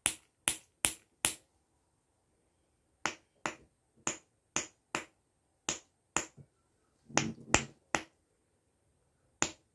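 Snapper fidget toy being flexed, giving sharp plastic snaps. There are four quick snaps, a short pause, then about ten more at roughly half-second spacing, with a little handling noise around the loudest one near the end.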